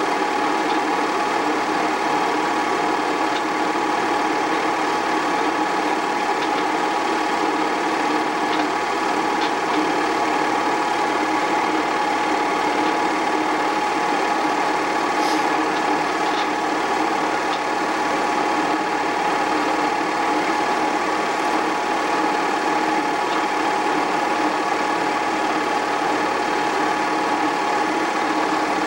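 An 8mm film projector running: a steady mechanical hum with a few faint ticks.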